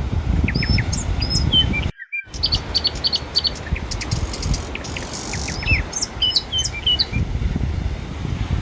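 Small birds chirping in quick, high notes over a steady low rumble of surf and wind on the microphone. The sound cuts out briefly about two seconds in.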